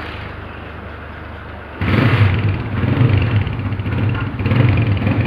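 A freshly rebuilt 125 cc four-stroke motorcycle engine, with a new piston and valves and a reworked cylinder, running at a low steady idle. About two seconds in it is revved up sharply and held at higher, uneven revs.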